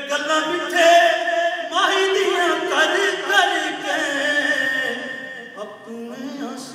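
A man singing a naat unaccompanied into a microphone, with long ornamented notes that waver and bend in pitch.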